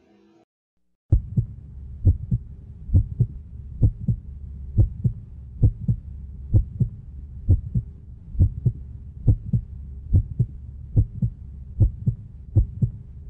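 Heartbeat sound effect: a steady double thump, lub-dub, about once a second, over a faint steady hum. It starts about a second in, after a brief silence.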